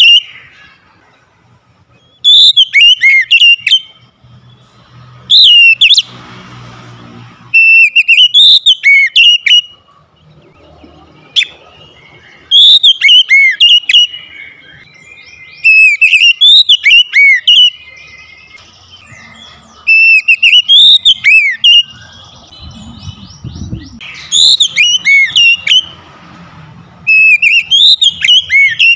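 Male oriental magpie-robin (kacer) singing loud phrases of whistled notes that sweep up and down, about eight phrases of a second or two each with short pauses between.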